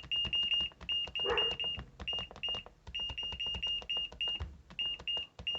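Electronic control board's buzzer sounding a rapid run of short, high, same-pitched beeps, about four a second with a couple of brief pauses, each with a sharp click.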